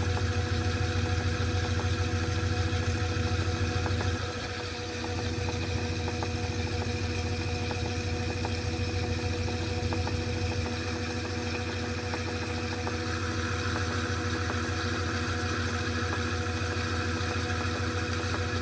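2012 LG top-load washing machine spinning at full speed: a steady, quiet motor hum with some vibration, easing slightly about four seconds in.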